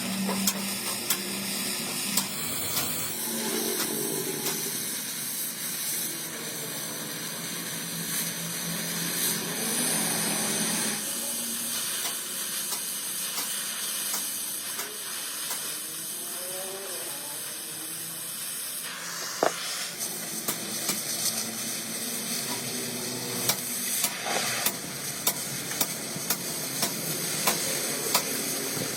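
Electric arc welding on a steel truck chassis frame: a steady frying crackle from the welding arc, broken into a few runs, with sharp clicks near the end.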